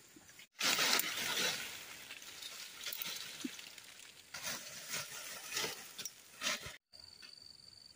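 Dry bamboo branches and dead leaves rustling and crackling as they are dragged and shoved with a long wooden pole, in several loud surges. Near the end the sound cuts off, leaving a faint steady insect buzz.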